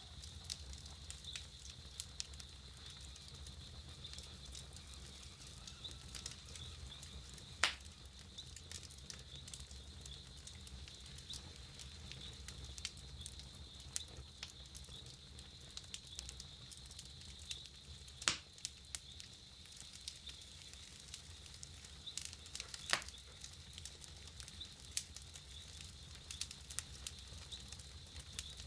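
Wood campfire crackling: a steady stream of small ticks and snaps, with three louder pops spread through.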